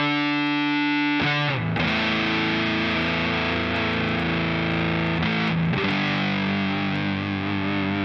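Electric guitar played through a JOYO Hot Witch (R-25) Big Muff–style fuzz pedal: distorted, sustaining notes or chords, each held for several seconds, with a change about a second and a half in and again about five and a half seconds in.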